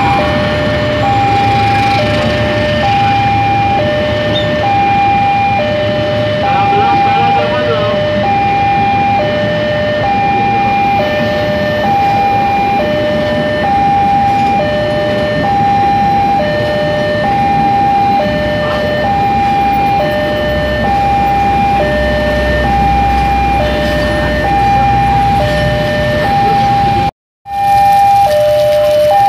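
Railway level-crossing warning alarm sounding two tones that alternate high and low in a steady repeating pattern, over the noise of a passing train and rain. The sound cuts out for an instant near the end, then the alarm goes on.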